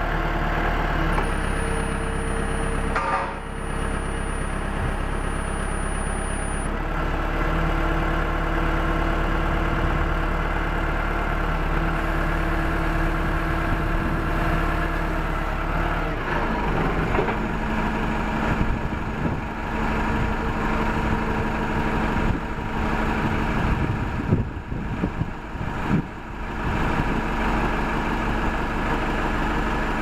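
Diesel engine of a 1999 SkyTrak 10054 telehandler running steadily. Its note shifts about halfway through while the hydraulics raise a stabilizer leg.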